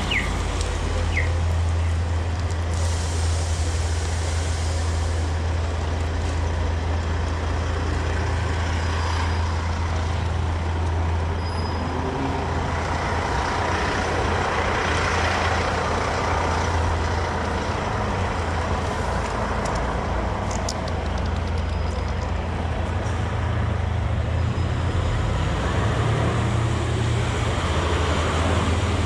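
Heavy rain on a city street with passing traffic: a dense, steady hiss of rain over a constant low engine rumble from road vehicles.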